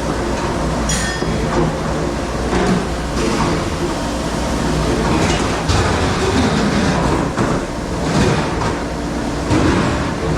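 Commercial kitchen dish machine running steadily with a low hum and spraying noise, with several sharp clatters of dishes or racks.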